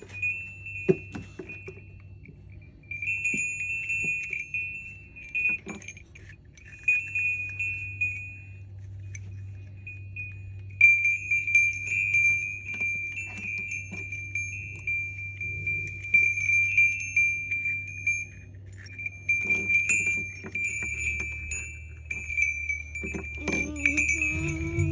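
Small hand-forged Kachchh bells ringing and clinking as they are handled and strung on a cord. A bright, high ringing tone sounds again and again, sometimes holding for several seconds, with small metallic clinks in between.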